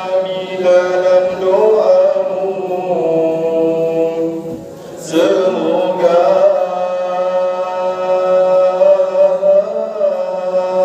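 A man's voice chanting a prayer in long, drawn-out melodic lines, with a short breath break about four and a half seconds in.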